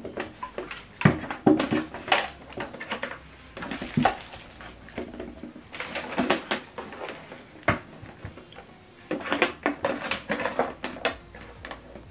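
Scattered knocks, clicks and clatter of the ULTIMEA Apollo S60 soundbar sections and subwoofer cabinet being handled and set down on a table, with short stretches of rustling.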